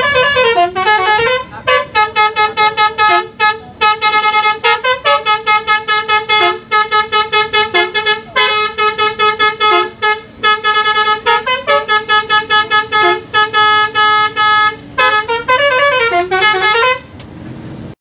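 Bus telolet horn, a multi-tone musical air horn, playing a fast, stuttering melody of short notes at several pitches, with a few swooping dips in pitch. It is loud, and cuts off near the end.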